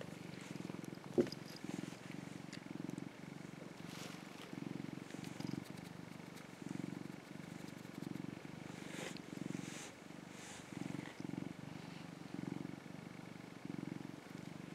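Orange tabby cat purring close up, the purr swelling and fading in regular pulses with its breathing. A single sharp click about a second in.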